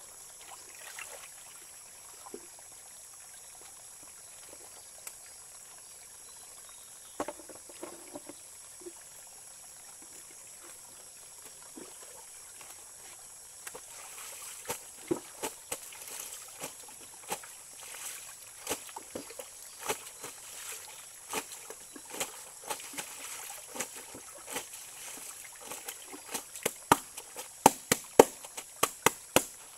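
Wet clothes being hand-washed on a wooden plank beside a stream: a steady water trickle throughout. From about halfway on come sharp wet slapping strokes as the clothes are worked by hand, growing faster and louder toward the end, about three a second.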